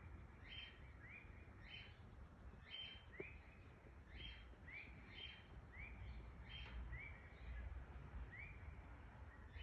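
Birds calling faintly: a steady series of short, clear notes, nearly two a second, alternating between a higher note and a slightly lower rising one, over a low rumble.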